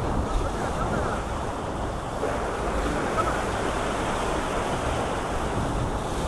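Ocean surf breaking and washing against the rocks of a jetty in a steady, even rush, with wind buffeting the microphone.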